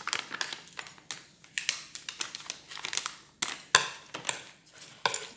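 A plastic packet crinkling as it is handled, mixed with irregular sharp clicks and taps of chopsticks against a plastic bowl.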